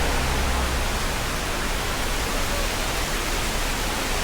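Steady, loud rushing noise, spread evenly from low to high and unchanging throughout.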